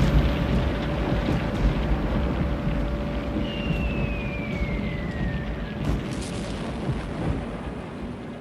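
Air-raid sound effects: a heavy, continuous low rumble of bombing that slowly fades, with the whistle of a falling bomb dropping in pitch a few seconds in, followed by a sharp crack just before the six-second mark.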